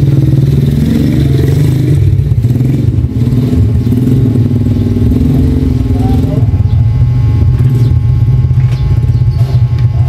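A motor running with a steady low hum. From about six and a half seconds it is joined by light clicks and fabric rustling.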